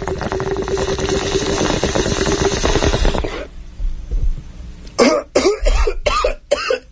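Bong hit sound effect: water bubbling and gurgling through a bong for about three seconds. Then, about five seconds in, a run of hacking coughs.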